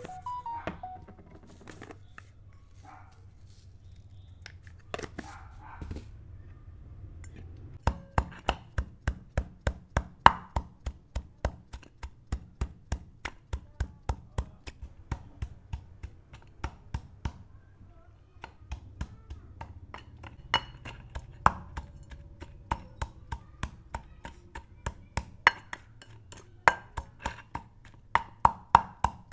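A kitchen knife chopping quickly and steadily on a cutting board, about three strokes a second, after a few scattered knocks; the chopping pauses briefly a little past halfway, then picks up again.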